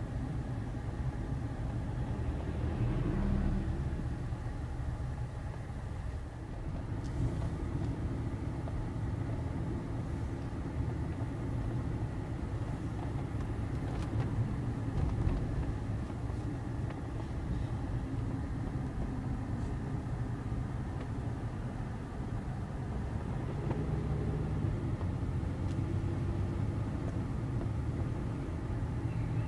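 Steady low rumble of a car being driven, heard from inside its cabin: engine and tyre noise on the road.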